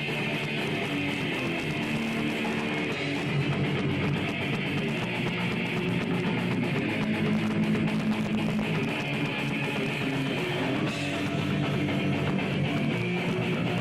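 Electric guitar played through an amplifier, steady and unbroken.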